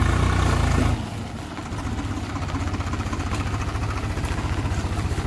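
Swaraj 735 FE tractor's three-cylinder diesel engine running as the tractor drives on steel cage wheels, louder for about the first second, then settling to a steady, fast pulsing beat.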